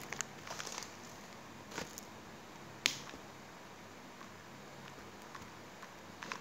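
Handling of plastic-wrapped snack packets against a cardboard box: a few faint rustles and sharp ticks, the sharpest about three seconds in, over a quiet room.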